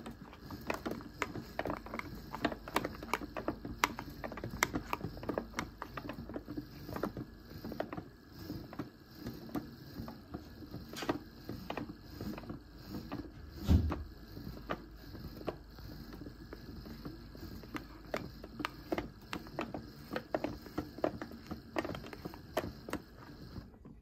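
Vintage 1970s Casdon toy washing machine running its main wash: the small motor hums steadily while the drum turns, with many irregular clicks and knocks from the drum and mechanism. One louder thump comes about 14 seconds in, and the sound cuts off abruptly at the end.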